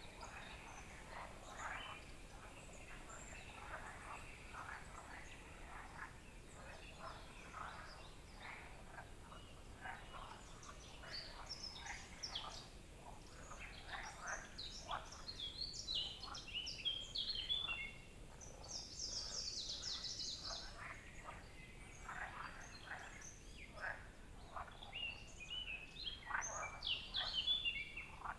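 Several songbirds singing in a leafy forest: a steady chorus of short chirps, whistles and trills from different birds, with a fast high trill standing out about two-thirds of the way through.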